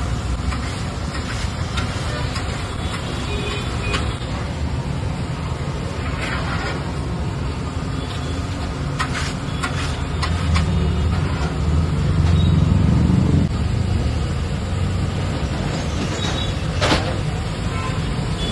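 Street traffic running past steadily, with a heavy vehicle passing louder about ten seconds in. A few sharp knocks are heard over it.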